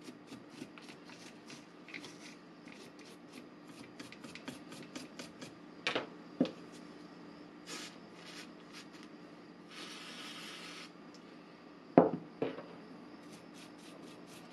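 Toothbrush bristles scrubbing a cordless drill's motor and circuit board in quick scratchy strokes, several a second. A brief hiss lasts about a second around ten seconds in, and sharp knocks come near six seconds and near twelve seconds, the one near twelve the loudest.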